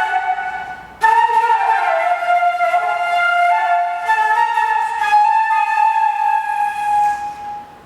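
Slow melody of long held notes on a wind instrument. It breaks off briefly about a second in, then a new phrase runs on and stops near the end.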